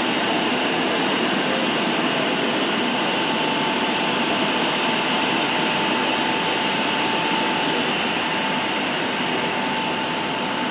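Steady, loud machine noise of a running high-power longwave broadcast transmitter and its cooling plant, with a faint steady whine coming in a few seconds in.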